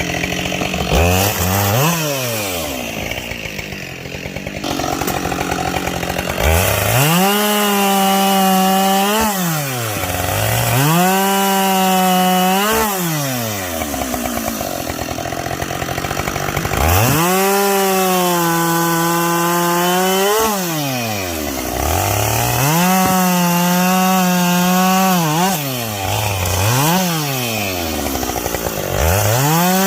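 Two-stroke chainsaw bucking logs. It is throttled up to full revs and held through each cut for one to three seconds, then drops back to idle between cuts, about seven times.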